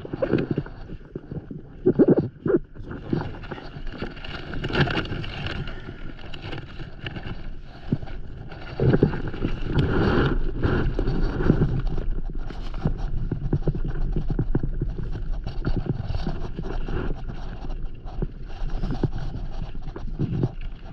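Handling noise from a camera being moved and stowed: irregular rubbing, rustling and short knocks against gear on a paddleboard.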